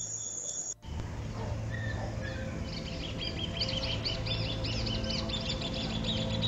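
Crickets chirping in steady, even pulses, cut off abruptly under a second in. About three seconds in, birds start chirping in a dense run of quick, repeated calls over a steady low hum.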